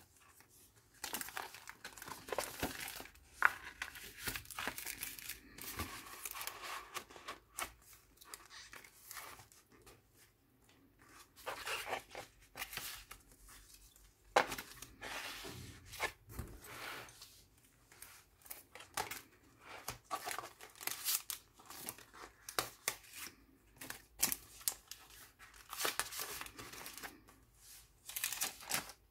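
Paper rustling and crinkling as the flaps, loose photos and thick decorated pages of a handmade junk journal are handled and turned, in irregular swishes and soft taps with short pauses between.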